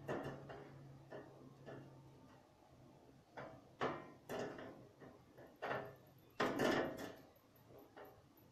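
Irregular knocks and clunks, like something wooden being moved or shut, about a dozen in all, with the loudest cluster around six to seven seconds in. A low steady hum stops about two seconds in.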